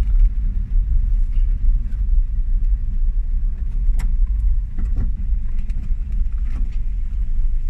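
1982 Mazda B1600 pickup rolling slowly in low gear, its engine and road noise heard as a steady low rumble from inside the cab. A single sharp click comes about four seconds in.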